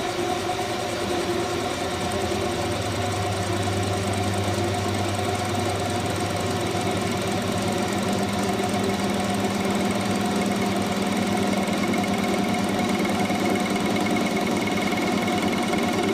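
Small metal lathe taking an interrupted cut: a carbide insert cutting the flat sides of a block held sideways in the chuck, so the tool strikes the work each revolution and gives a steady, rapid knocking over the motor's hum.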